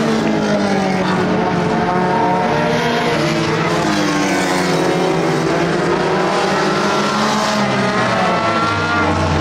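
Several dirt-track race cars running at speed around the oval, their engine notes overlapping and rising and falling in pitch as they go through the turns and pass.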